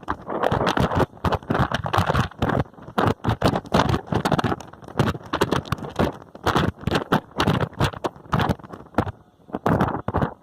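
Moving bus: rapid, irregular clattering and crackling, many sharp knocks a second, as the bus rattles and jolts along the road.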